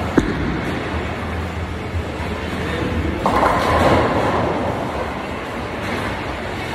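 A bowling ball lands on the wooden lane with a knock and rolls with a low rumble for about three seconds. It then crashes into the pins, and the pins clatter loudly for about a second.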